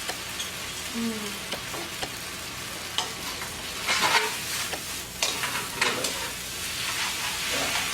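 Sweet potato glass noodles and vegetables sizzling in a hot oiled pan as they are stir-fried with sauce, with a steady hiss and several sharp scrapes and clicks of the utensil against the pan in the middle.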